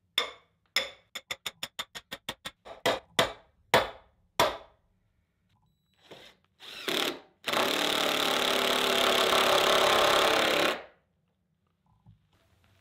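A small sledge hammer striking a steel form stake, a fast run of about a dozen blows and then a few slower ones, driving the stake into the ground. Then a cordless drill runs in a couple of short bursts and a steady run of about three seconds, driving a screw through the stake's hole into the wooden form board.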